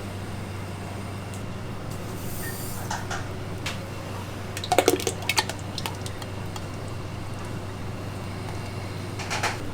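Restaurant kitchen sounds: a steady low machine hum, with a short clatter of several quick knocks about five seconds in and a softer one near the end.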